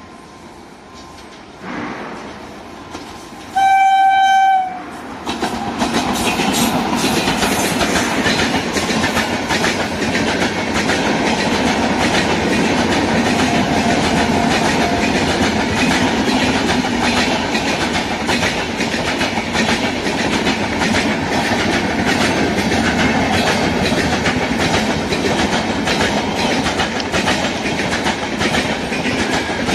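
An electric locomotive's horn sounds one loud blast of about a second, about four seconds in. Then the New Delhi Superfast Express passes at speed: a steady rush of passenger coaches with a fast clickety-clack of wheels over the rail joints.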